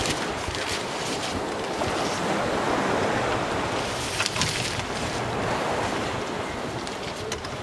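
Wind rushing over the microphone, with the nylon fabric of a wind scoop rustling as it is handled on its pole; a brief burst of sharper rustling about four seconds in.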